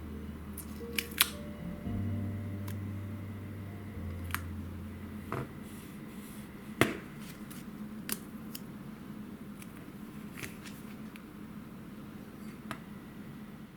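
Scattered light clicks and taps of small tools and parts being handled on a model car, the sharpest about a second in and near the middle. A low music note fades out after about five seconds.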